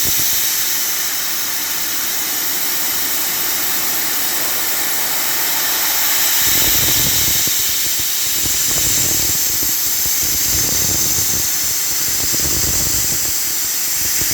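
Milling machine cutting a V-block: a steady high hiss from the running cutter, with a lower rumble that swells about six, nine and twelve seconds in.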